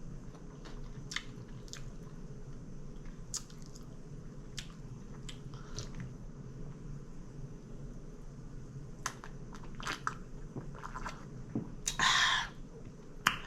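Close-miked chewing and biting of a Subway sub, with scattered wet mouth clicks. A brief louder noisy burst comes near the end.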